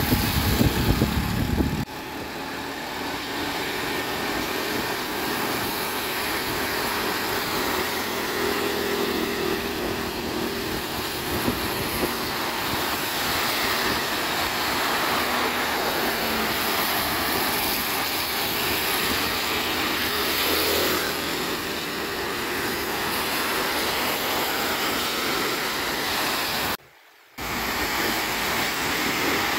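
Steady road noise of a vehicle driving on a wet road: tyres hissing on water and wind rushing past, with a faint engine hum. A heavier low rumble fills the first two seconds, and the sound cuts out for about half a second near the end.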